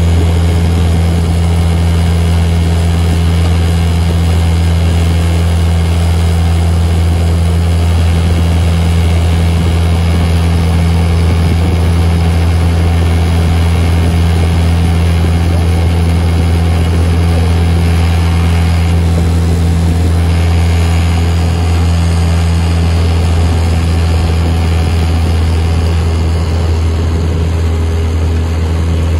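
Motorboat engine running at a steady cruising speed, a constant low drone, with water rushing in the churning wake.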